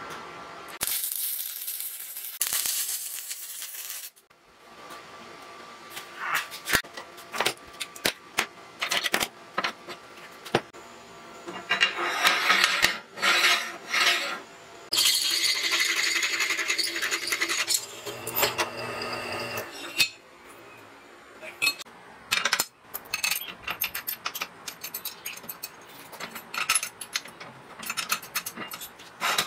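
Steel fabrication work: a few seconds of MIG welding crackle near the start, then steel parts clinking, knocking and scraping, with a longer stretch of metal rubbing on metal in the middle as the carriage is slid along its steel guide tubes.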